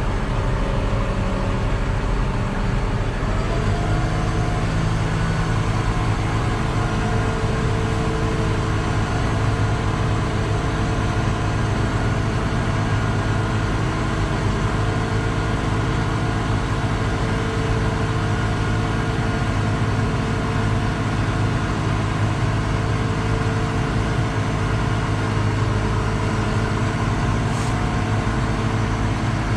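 Tractor engine running steadily while the tractor backs up to hitch a grain cart; the engine speed picks up slightly about three to four seconds in.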